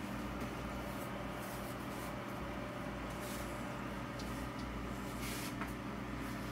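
Steady low mechanical hum with several constant tones, like a motor or fan running, and a few faint brief noises over it.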